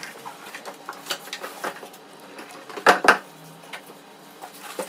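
Handling noise as an RV water heater is pulled out of its shipping box: scattered light clicks and rattles, with two sharp knocks close together about three seconds in.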